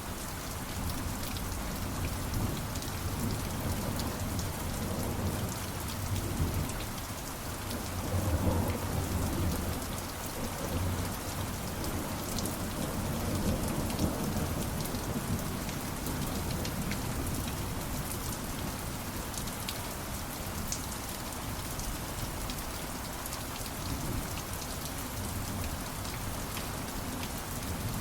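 Steady heavy rain hissing on a surface, with low rolls of thunder swelling and fading several times in the first half.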